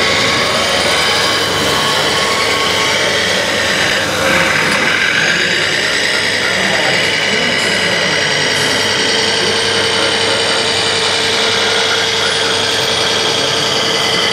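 Electric drive motor and gearbox of a radio-controlled MAN 6x6 tipper truck whining steadily as it drives, the pitch shifting briefly about four seconds in.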